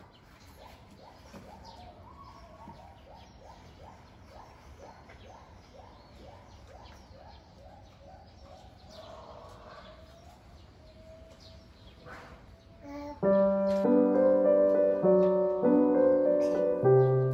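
Faint, quick series of repeated chirping calls, about two or three a second, for the first ten seconds or so. About thirteen seconds in, piano music starts and is much louder.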